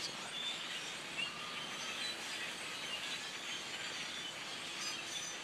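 A large flock of small birds chirping: many faint, short, high chirps scattered over a steady background hiss.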